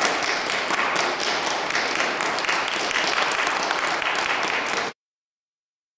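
Audience applauding steadily, the claps blending into one continuous sound that cuts off abruptly about five seconds in.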